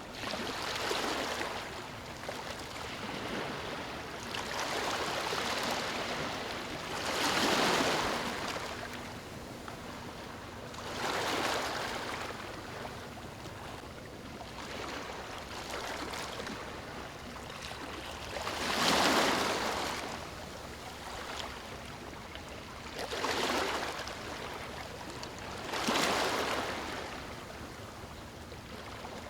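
Small waves lapping on a beach over a steady wash of water, each wave breaking as a brief swell of hiss; about seven arrive, irregularly spaced, the ones about a third of the way in and about two-thirds of the way in loudest.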